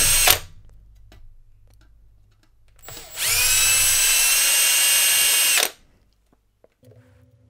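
Cordless drill whining as it drills out a diode hole in a printed circuit board to make it larger. It stops just after the start, then spins up again about three seconds in and runs steadily for about two and a half seconds before winding down.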